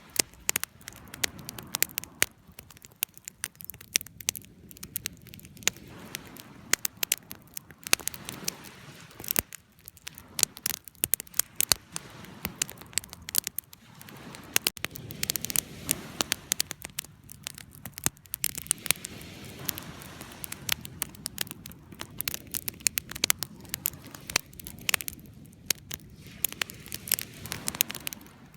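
Wood fire crackling, with frequent sharp irregular pops and snaps over a low, steady rush of the flames.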